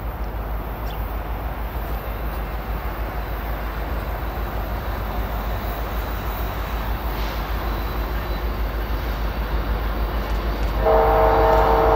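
Approaching diesel freight locomotives, a steady rumble growing slowly louder. Near the end the lead locomotive's air horn sounds a loud, steady chord of several notes.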